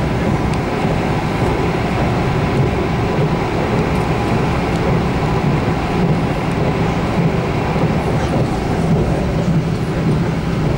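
Steady rumble and hiss of an electric passenger train running at speed, heard from inside the carriage.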